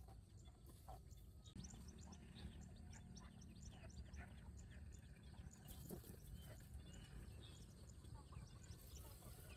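Near-silent outdoor ambience: many faint, short high chirps of distant small birds over a low rumble, with a faint steady hum coming in about a second and a half in.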